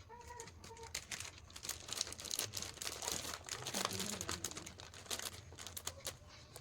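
Plastic snack packets crinkling and rustling as they are handled, a dense run of irregular crackles.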